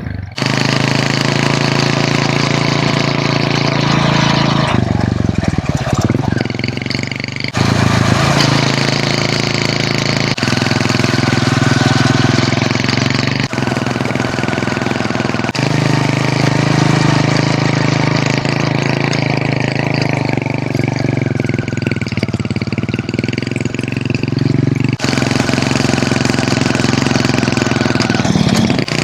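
Hero Honda CD100's small single-cylinder four-stroke engine running steadily under way. The sound jumps abruptly several times, and its pitch shifts around five to seven seconds in.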